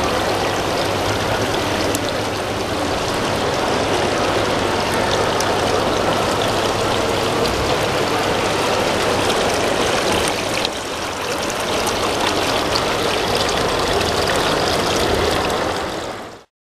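Water splashing steadily down a small fiberglass corner waterfall into an ornamental garden pond. It dips a little in level about eleven seconds in, then fades and stops abruptly near the end.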